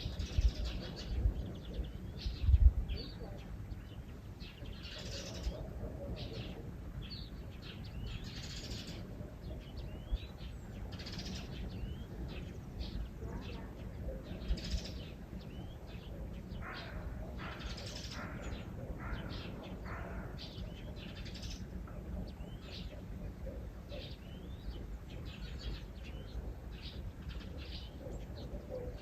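Small birds chirping and calling, many short notes overlapping through the whole stretch, over a low steady outdoor rumble, with a few dull low thumps in the first three seconds.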